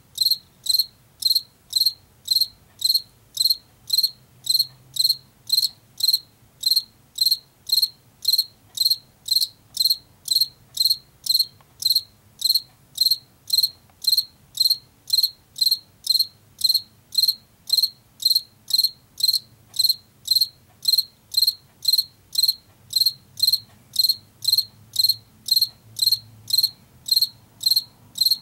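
Male field cricket calling: short, high-pitched chirps repeated evenly about twice a second, made by rubbing its forewings together.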